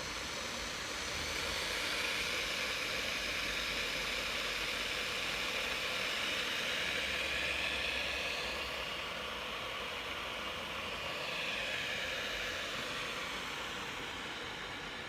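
Kismet Turkish coffee machine heating a pot of water and ground coffee, a steady hiss from the heating pot that swells slightly through the middle and eases toward the end.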